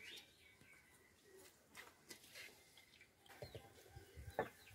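Near silence with faint bird chirps and a few light knocks, the sharpest knock near the end.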